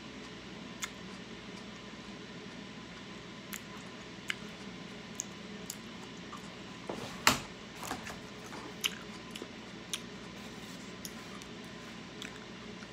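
Close-up chewing of cooked octopus: scattered wet mouth clicks and squishes over a steady hiss, with one louder smack a little past halfway.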